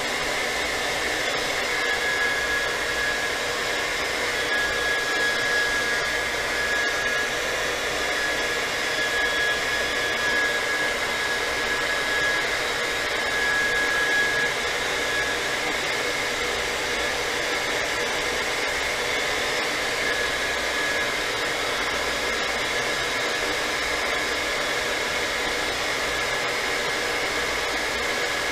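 Handheld hot-air blower running steadily with a faint whine, warming a smartphone's glass to soften the adhesive so the cracked screen can be pried free.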